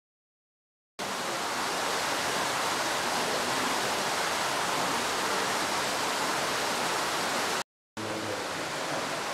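Mountain stream rushing over rocks, a steady even rush of water that starts about a second in and cuts out briefly near the end.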